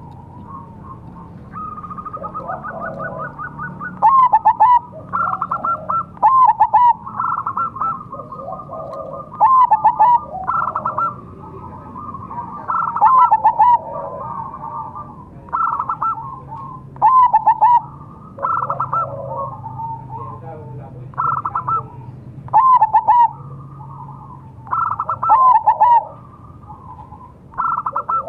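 Zebra dove (perkutut) of the crossbred 'mega mendung' kind cooing its rhythmic call over and over, a loud phrase about every two seconds, with a quick rolling run of notes early on. Fainter coos from other doves sound behind it.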